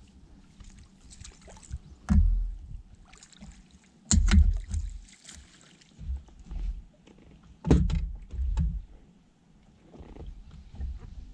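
Hollow thumps and knocks on a fishing boat's deck and hull as gear such as a landing net is handled, several of them spaced a second or two apart, the loudest about two, four and eight seconds in.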